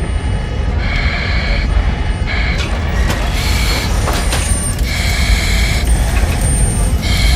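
Smoke alarm sounding: repeated long, shrill beeps about every one to two seconds, over a loud steady low rumble.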